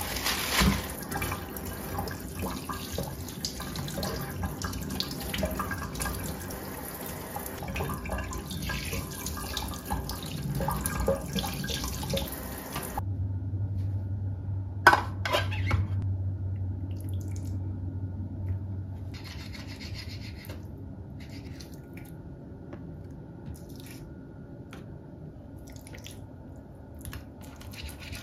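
Kitchen tap running into a stainless steel sink while raw chicken is rinsed under it, a steady splashing that stops abruptly about halfway through. After that it is much quieter, with a low hum and a couple of sharp knocks as things are set down on a granite counter.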